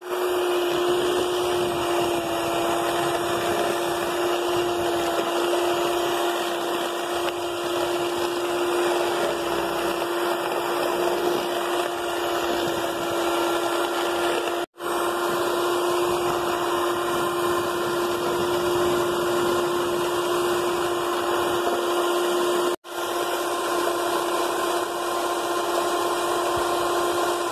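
Handheld electric mixer running at a steady speed, its beaters whipping egg whites, yolks, margarine and sugar into cake batter. A constant even-pitched motor hum that cuts out for an instant twice.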